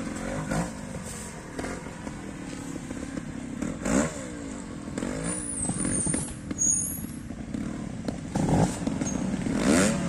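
Trials motorcycle engine blipped in short throttle bursts as the rider climbs a rock section, the revs rising and falling sharply several times over a low running note.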